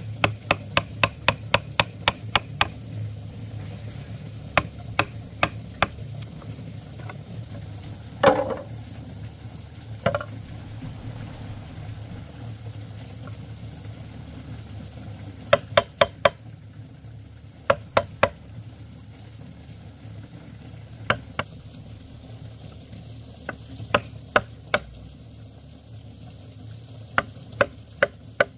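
Cooking in a kitchen: sharp knocks of a utensil, coming in a quick run of about four a second at first and later in short clusters, over a steady low hum and a faint hiss like frying.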